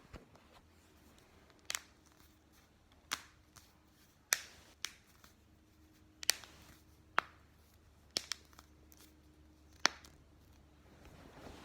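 Neck joints cracking: about nine sharp, separate pops a second or so apart, two of them in quick succession.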